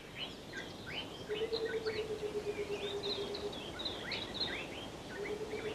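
Small birds twittering, with many short, quick chirps over a faint outdoor background. A steady low hum comes in about a second in, holds for about two seconds, and returns near the end.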